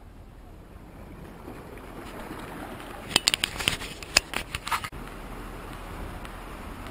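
Outdoor waterfront ambience: a steady low rumble of wind and background noise, broken about three seconds in by a quick run of sharp clicks and knocks lasting nearly two seconds, after which the sound changes abruptly.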